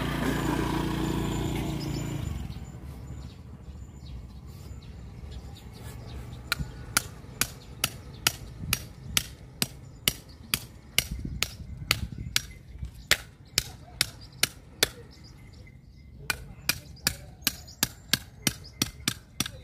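A motorcycle passes at the start, then sharp hammer blows in a steady rhythm of about two a second, cutting up a large striped catfish, with a short pause before they carry on.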